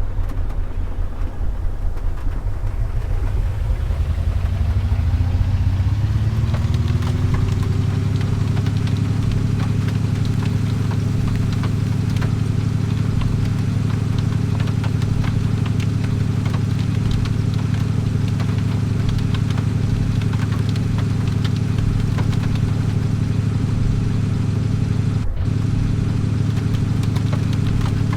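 A vehicle engine speeds up, its pitch rising over the first several seconds, then runs at a steady pitch.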